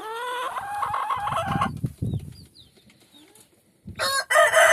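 Rooster crowing, a rising call over the first second and a half, with low wing-flapping thumps after it. A second loud crow starts about four seconds in.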